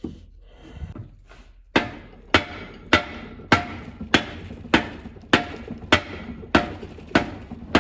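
Steady hammer blows on steel, about one every 0.6 seconds and starting about two seconds in, each leaving a metallic ring: driving the input shaft out of an Allis-Chalmers B tractor transmission case.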